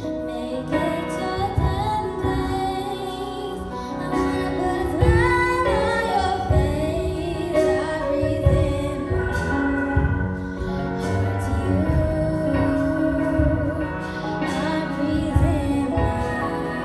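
Song with a woman singing over instrumental accompaniment with a steady beat, with guitar heard just after.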